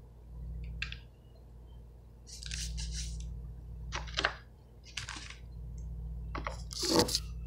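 Handling noise: a string of short plastic rustles and clicks as hands work at food packaging and then grab and move the recording phone, the loudest clunk near the end, over a steady low hum.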